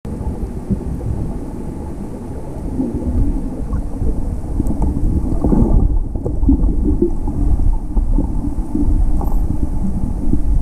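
Underwater noise picked up by a camera filming beneath the surface: a steady low rumble with irregular low gurgles.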